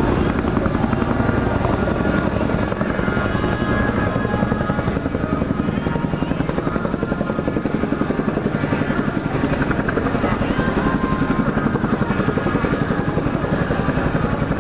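CH-47JA Chinook tandem-rotor helicopter in flight, its two rotors beating rapidly and steadily.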